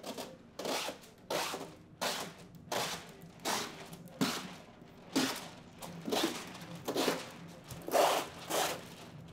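Irregular rustling and crinkling of a thick plastic security window film sheet being handled and pressed against wet glass, in short swishes of under half a second each.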